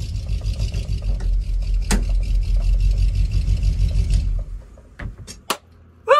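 School bus's newly swapped-in engine running, heard from inside the bus as a steady low pulsing drone that cuts off about four seconds in, followed by a few sharp clicks.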